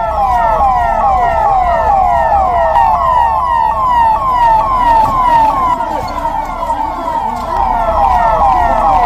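Emergency vehicle siren sounding in rapid, repeated falling sweeps, about two to three a second, over a low rumble.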